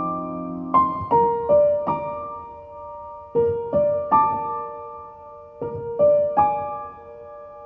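Slow background piano music: single notes struck in small groups and left to fade.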